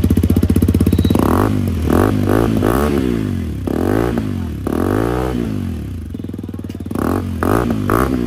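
Hero Karizma XMR 210's single-cylinder engine running through an aftermarket R1M-style slip-on muffler with its dB killer fitted, idling and then revved in a series of quick blips, about eight rises and falls in pitch.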